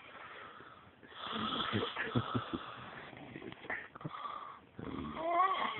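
A person snoring in breathy, rasping breaths, with a brief wavering tone near the end.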